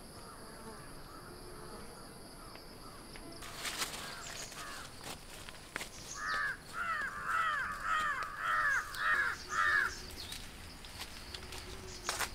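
A crow cawing, a run of about eight harsh calls in quick succession, roughly two a second, in the second half. Before the calls there is a steady high insect drone that stops a few seconds in, followed by rustling in the vegetation.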